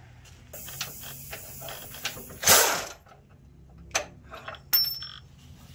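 Hand tools working on a car's front suspension: a ratchet clicks in quick ticks over a light hiss. About halfway through comes a short, loud rush of noise, and a few metal clicks follow near the end.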